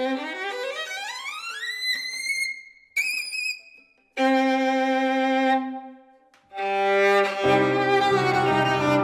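Solo violin playing: a long upward glissando sliding over about two seconds to a high note, a brief high note with vibrato, then after short pauses a sustained low note and another held note. About seven and a half seconds in, the piano joins with low bass notes under the violin.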